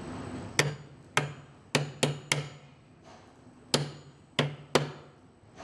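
Hammer striking the back of a spring-steel hammer-on beam clamp, driving its tangs onto a steel beam flange. Eight sharp metal strikes, each with a short low ring: five in quick succession, a pause of over a second, then three more.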